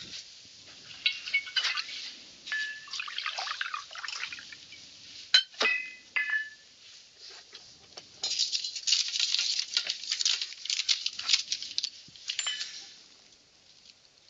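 Crystal decanter and glass tumblers clinking on a glass drinks tray, with a few sharp, ringing clinks about halfway through, and liquor poured into a tumbler for a few seconds after that.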